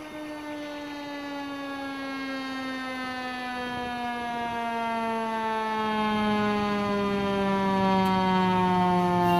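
Fire engine siren winding down in one long, slow fall in pitch, growing louder as the truck approaches. A deeper tone joins about six seconds in.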